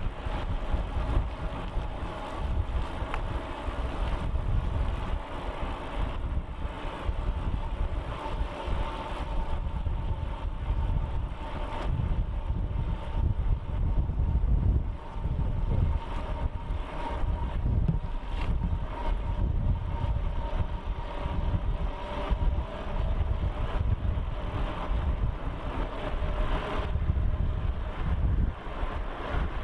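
Wind rushing over the microphone and tyres on asphalt as an e-bike climbs a hill, with a faint steady whine from its Bafang 500 W geared hub motor under load.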